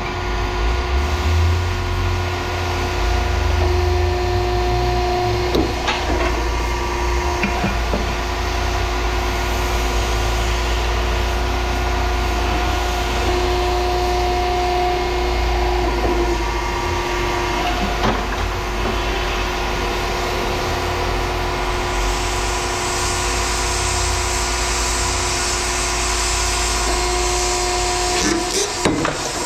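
A heavy engine or machine running steadily with a deep rumble and a constant hum, with a few faint knocks; from about two-thirds of the way in, a hiss joins it.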